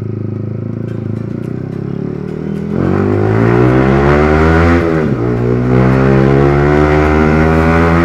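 Yamaha R15 V3's 155 cc single-cylinder engine through a loud aftermarket exhaust, running at low revs, then accelerating hard almost three seconds in. The pitch climbs, drops sharply at a gear change about two seconds later, then rises again as the bike pulls.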